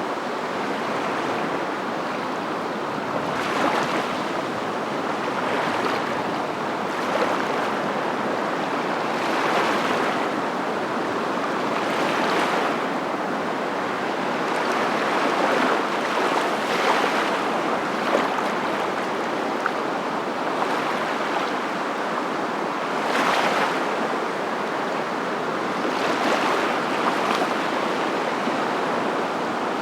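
Steady rushing noise that swells and eases every two to three seconds, like water washing in.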